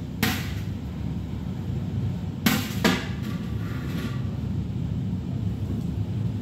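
Large metal skimmer clanking against the rims of a big stainless steel pot and a steel hotel pan as cooked pasta is scooped across: a few sharp metallic knocks, two of them close together a couple of seconds in, over a steady low hum.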